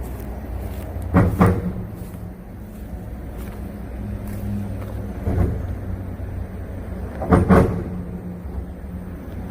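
Vehicles crossing a bridge's rail-type expansion joint: sharp double clunks as the front and rear wheels hit the joint, twice loudly (about a second in and near the end) and once more lightly in between, over a steady hum of passing traffic.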